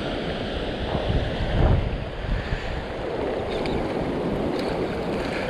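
Surf washing over the shallows with wind buffeting the microphone, a stronger gust about a second and a half in.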